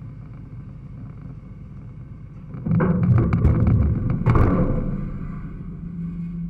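Combine harvester running steadily, then about two and a half seconds in a louder stretch of rattling and knocking for about two seconds as its grain tank cover folds, easing back to a steady hum.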